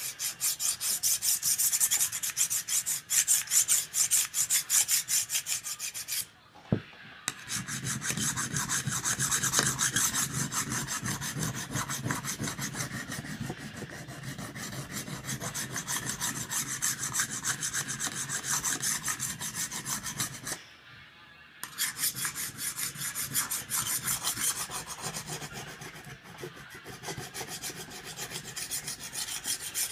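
Steel knife blade drawn rapidly back and forth across a diamond sharpening stone, a steady rasping scrape of stroke after stroke. The strokes pause briefly twice, with a small click in the first pause.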